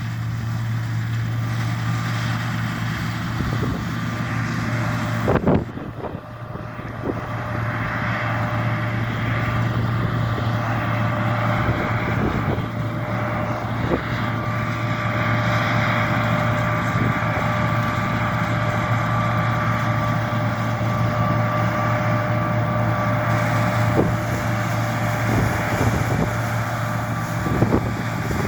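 John Deere T670i combine harvester running while cutting: a steady engine drone with a constant whine from the threshing machinery over a rushing noise, and a few brief knocks, the biggest about five seconds in.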